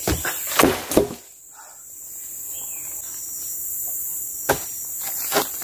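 Forest insects keep up a steady high whine throughout. Over it come crunching steps on dry leaf litter with a few sharp knocks in the first second, then two single wooden thumps in the second half as a dead log is knocked and set down on the forest floor.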